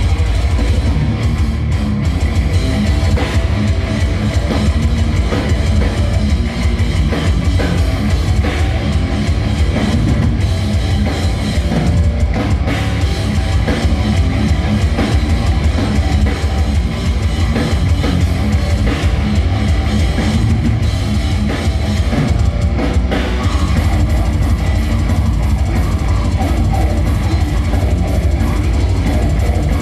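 Death metal band playing live, heard loud and heavily distorted through a phone microphone in the crowd: fast drums with distorted bass and electric guitar, the low end overwhelming, in a dense unbroken wall of sound.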